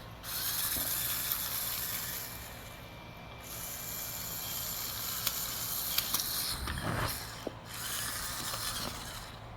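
Electric motors and gears of a remote-control Lego car whirring as it drives, with a high whine that briefly drops out about three seconds in and again near the end. A few light clicks and a dull knock come about seven seconds in.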